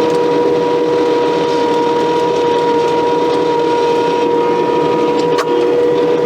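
Case TV450 skid steer running under load with its hydraulic stump grinder attachment working, heard from inside the closed cab: a steady diesel drone with a constant whine on top. There is one brief click about five and a half seconds in.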